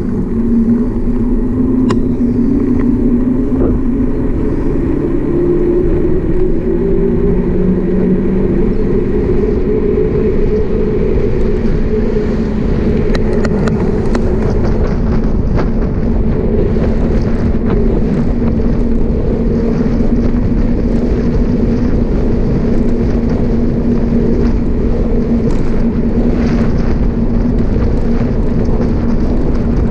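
Wind buffeting the microphone and tyre noise from a fat-tyre bicycle rolling on asphalt, under a steady hum. Some of the hum rises in pitch over the first ten seconds or so, then holds.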